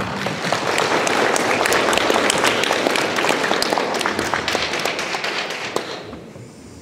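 Audience applauding, a dense patter of many hand claps that dies away near the end.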